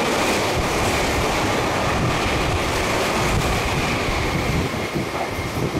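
Meitetsu 2000 series μSKY airport express running through a station at high speed without stopping: a loud, steady rush of wheel and air noise that eases slightly near the end as the train clears the platform.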